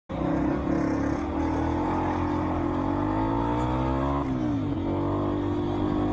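Dirt bike engine pulling hard at speed, its pitch climbing for about two seconds, then dropping sharply about four seconds in and picking up again. It is heard from on the bike, with wind rumble on the microphone.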